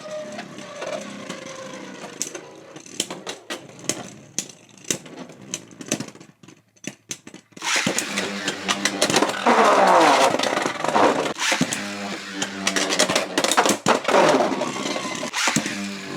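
Beyblade X spinning tops battling in a plastic stadium: whirring with sharp clicks of collisions, dying away almost to silence about six seconds in. About eight seconds in, a fresh launch brings loud whirring and clashing of two tops, with a falling whine.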